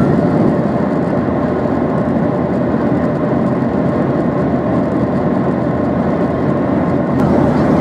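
Steady cabin noise of a Boeing 737-800 in flight: the even rush of airflow and the CFM56 engines as heard from an economy seat by the wing.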